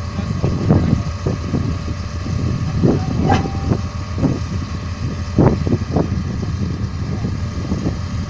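A heavy vehicle's engine running steadily at idle, with several short knocks and clunks over it, the loudest about five and a half seconds in.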